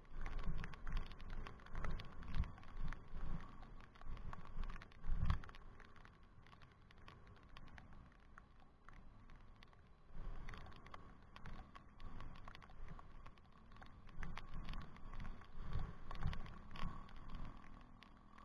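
Wind buffeting and road jolts on the microphone of a camera riding on a moving bicycle: irregular low thuds and rattles that come in clusters.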